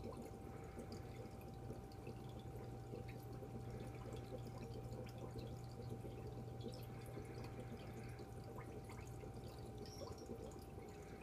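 Aquarium water trickling and dripping in many small, scattered drops, with a faint steady tone and a low hum that starts about a second in and stops near the end.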